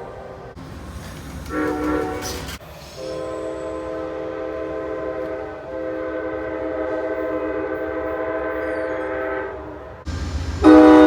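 Train air horn sounding a chord of several tones: a short blast, then one long blast held for about six seconds that fades out. Near the end a low rumble comes in and another horn gives a loud blast.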